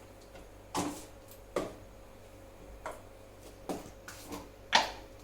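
A spoon knocking and clinking against a cooking pot and spice containers while spice powder is measured in: about seven short, sharp taps at uneven intervals, the loudest near the end.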